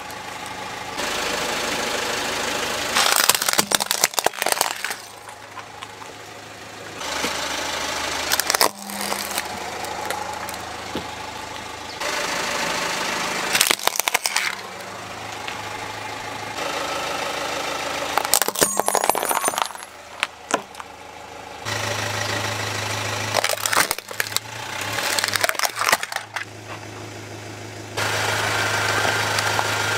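A car tyre rolls onto small plastic toy vehicles and crushes them: several bursts of plastic cracking and crunching, with a car engine idling between them. The background changes abruptly every few seconds.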